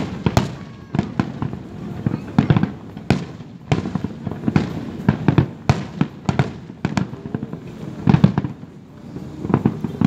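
Fireworks going off: an irregular run of sharp bangs and cracks, some in quick clusters, over lower booming thuds.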